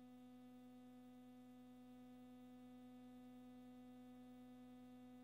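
Near silence with a faint steady electrical hum.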